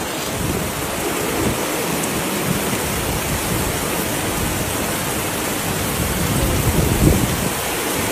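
Heavy rain pouring down onto a flooded street: a steady, dense hiss of downpour.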